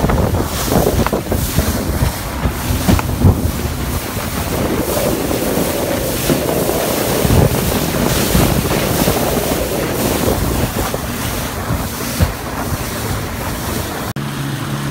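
Wind buffeting the microphone and water rushing against the hull of a motorboat running fast over choppy lake water. Just after 14 s it cuts to a steadier low engine hum.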